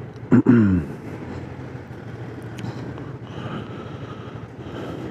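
Honda Forza 250 scooter's single-cylinder engine running steadily at low speed as it slows and stops at a light, with light road and wind noise. About half a second in there is one short, loud vocal sound that falls in pitch.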